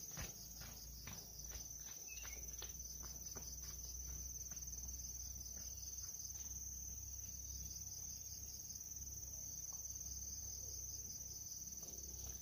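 Insects trilling steadily at a high pitch, with footsteps of flip-flops on a rocky dirt path, about two or three a second, fading away over the first four seconds or so. A low steady rumble runs underneath.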